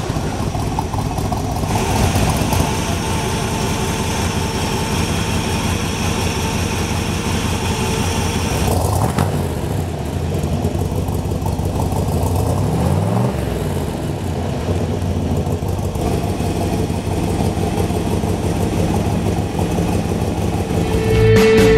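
1967 Chevrolet Corvette's 427 big-block V8 with side-mount exhausts idling steadily just after being started, with a brief rise and fall in engine pitch about 13 seconds in.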